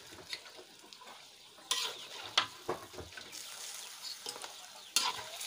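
Metal spatula stirring chicken pieces in an aluminium wok of hot, watery sauce, with a few sharp scrapes and knocks against the pan over a steady hiss from the cooking liquid.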